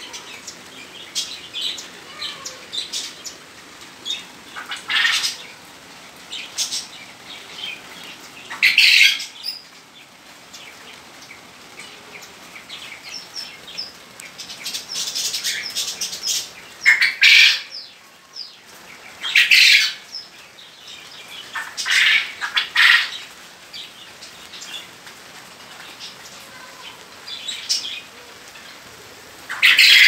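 Aviary birds chirping and calling, with repeated short bursts of wing flapping every few seconds.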